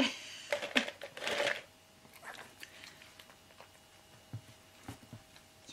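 Clicks and rustling of a plastic bowl being picked up and handled, bunched in the first second and a half, then a few faint clicks.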